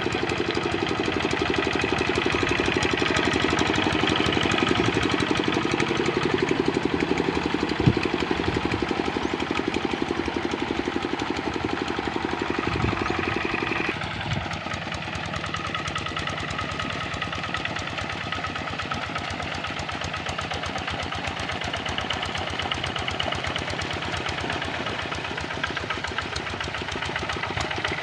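Single-cylinder Kubota RD65 diesel engine of a hand tractor running steadily with a rapid, even clatter. About halfway through it drops a little in level and changes tone, then runs on steadily.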